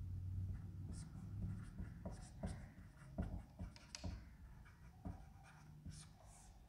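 Marker pen writing on a whiteboard: a run of short, faint, irregular strokes as words are written.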